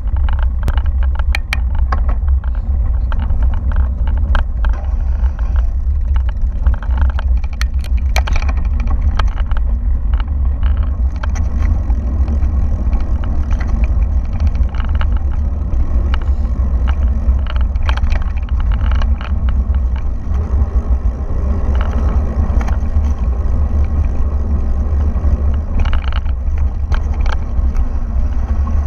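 Mountain bike riding on a dirt and gravel track: a steady low wind rumble on the action camera's microphone, with frequent clicks and rattles as the bike jolts over stones, thickest in the first few seconds.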